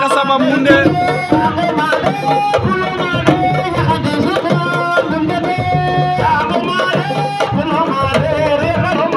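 Music: hand drums playing a steady stream of strokes, with a voice singing over them.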